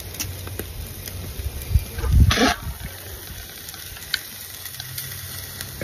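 Fish grilling on a charcoal grill as it is basted with sauce: a steady low rumble, with one brief hiss about two seconds in.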